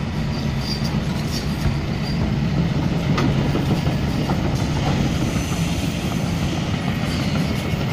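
Kobelco SK210 crawler excavator travelling on its steel tracks: steady diesel engine hum with track links clanking and squeaking as it rolls along.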